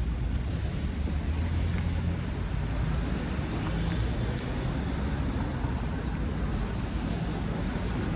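Steady road traffic noise: a continuous low rumble of vehicles and tyres passing on a street.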